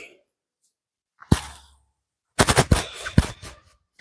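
One sharp crack about a second in, then a quick run of several cracks lasting about a second: joints popping (cavitation) under a chiropractic spinal manipulation.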